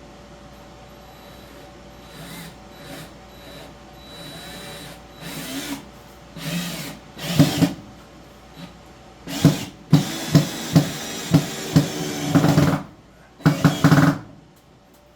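Power drill driving screws into a wooden subfloor patch in several short runs. The loudest stretch, in the second half, carries sharp knocks about two a second.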